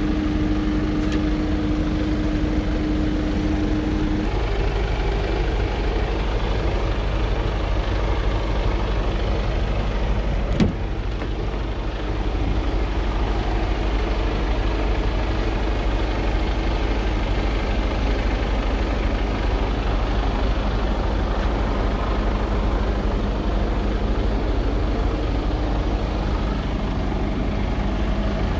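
Scania R truck's diesel engine idling steadily, with a humming tone in the engine sound that drops away about four seconds in. A single sharp knock comes about ten seconds in.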